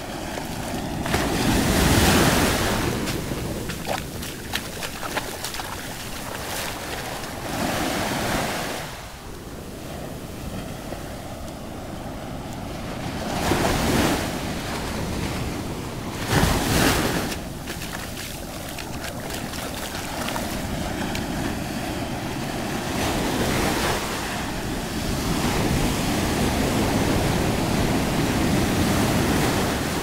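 Ocean surf on a sandy beach: small waves breaking and their foamy wash running up and sliding back, a steady rush that swells and fades with each wave, loudest about two seconds in and again around sixteen seconds in.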